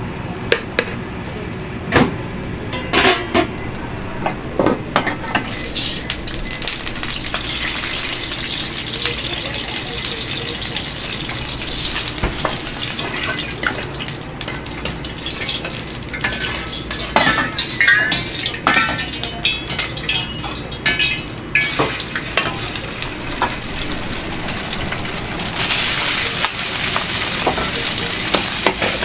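Fried rice stir-frying in a hot wok over a gas burner: steady sizzling, with a metal ladle clanking and scraping against the wok. The sizzle swells about five seconds in and again near the end, and the ladle strikes come thickest in the middle.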